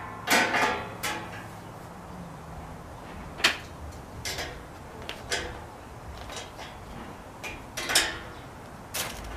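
Barbecue grill parts being assembled: scattered metal clanks and knocks, about nine at uneven intervals.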